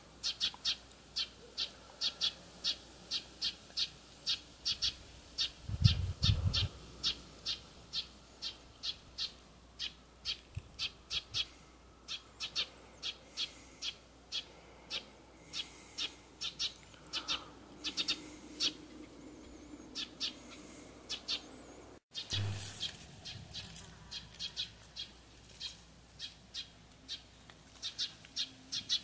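A bird calling over and over in short, high chirps, about two to three a second. There is a loud low thump about six seconds in, and the sound cuts out for an instant a little past the middle.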